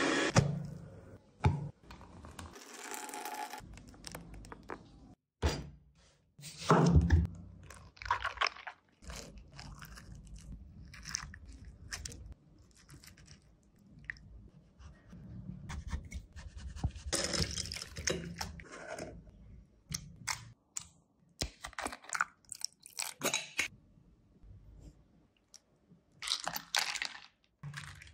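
Close-up kitchen sounds: a blender stops just after the start, followed by a string of short, irregular crunches, scrapes and taps as a spoon scrapes the seeds and flesh out of an orange-fleshed melon, with a wire whisk stirring the melon juice near the end.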